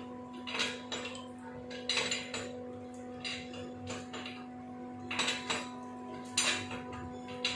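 Irregular metallic clinks and clicks from a hand wrench turning the steel flange bolts on a pipe check valve, over a steady hum.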